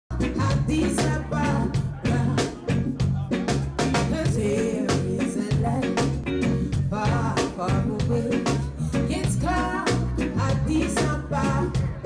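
Live reggae band playing a song with a steady beat and a stepping bass line, a woman singing lead over it.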